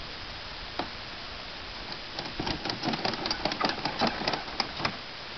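Ratchet tie-down strap being worked: a lone click about a second in, then a fast, irregular run of metal clicks from the ratchet buckle lasting nearly three seconds.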